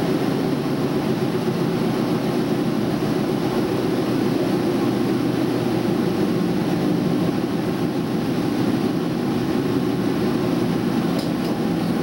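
Diesel express train running, heard from its front observation seat: a steady engine drone over wheel-on-rail running noise, with a couple of faint clicks near the end.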